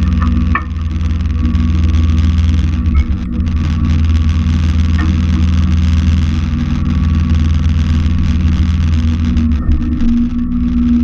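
Simplicity Legacy XL 4x4 garden tractor engine running steadily, with a few short high squeaks near the start.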